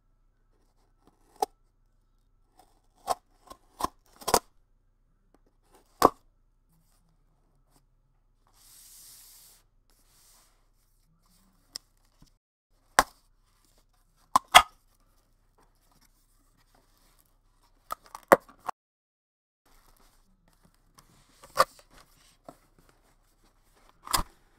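Cardboard shipping box being handled and opened: a dozen or so sharp taps and knocks of the box on the table, and a short rip of packing tape about nine seconds in. Near the end there are rustling knocks as the white inner box is slid out of the carton.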